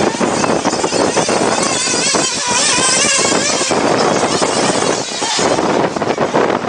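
Remote-control off-road car's electric motor whining over loud rough rolling noise, its pitch wavering up and down with the throttle from about two to three and a half seconds in.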